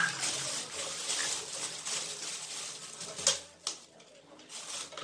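A thin clear plastic bag crinkling and rustling as empty plastic drink bottles are handled and stuffed into it, with two sharp clicks about three seconds in, then quieter handling.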